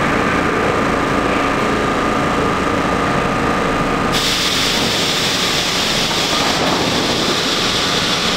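R32 subway train standing at the platform, its equipment running with a steady hum and a whine. About four seconds in, a loud hiss of air starts suddenly as the doors close, and keeps going.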